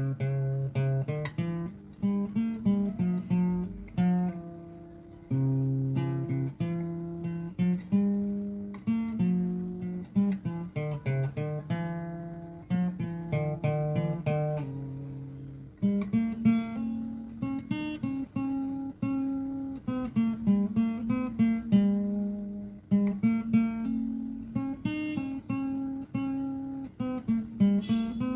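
Background music played on acoustic guitar: plucked notes over lower bass notes in a steady rhythm.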